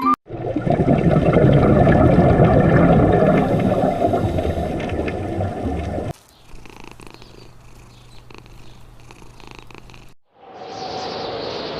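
An animal's loud, rough, low purr-like rumble for about six seconds. It cuts to a quieter stretch with a faint steady low hum, and after a short break a different, brighter noisy sound begins.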